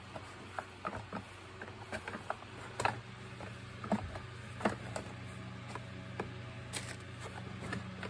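Light plastic clicks and knocks from handling and dismantling the plastic housing of an Electrolux ErgoSpace vacuum cleaner, scattered and irregular, with the sharpest knocks around three to five seconds in. A steady low hum lies underneath.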